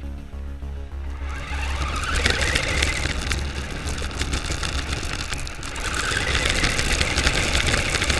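Electric drive motor of a radio-controlled New Bright Corvette whining as the toy car drives over gravel, its pitch rising and falling with speed. Its tyres crunch and rattle on the loose stones, picked up by a camera mounted on the car's roof.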